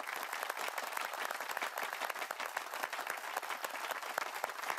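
Crowd applauding: many hands clapping in a dense, steady patter.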